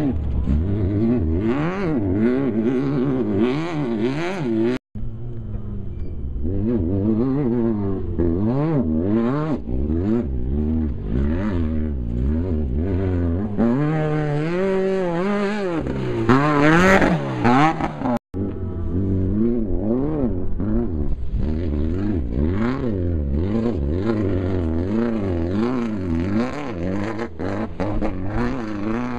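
Off-road desert race vehicle engines revving hard, the pitch rising and falling again and again as they accelerate and shift. The sound breaks off suddenly twice between shots, and is loudest and highest-pitched about two-thirds of the way through.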